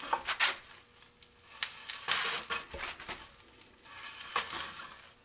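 Gloved hands rubbing and scraping against a rocket nose cone and coupler tube, with a marker drawn along the tube, in several uneven bursts.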